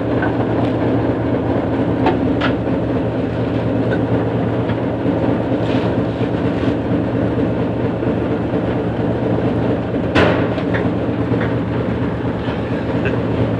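A cargo vessel's engine running with a steady low drone while rough waves break against the bow, with several short splashes of spray, the loudest about ten seconds in.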